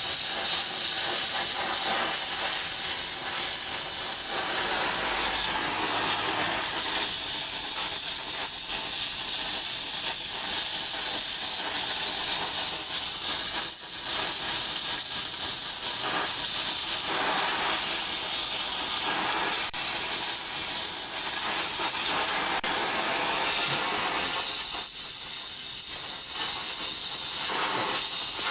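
Gas brazing torch flame hissing steadily while it heats a bicycle frame's bottom bracket joint for brazing with filler rod.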